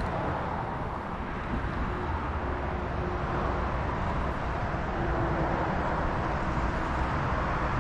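Steady rushing outdoor noise with a low rumble throughout, from the flowing river and wind, heard through an action camera's microphone.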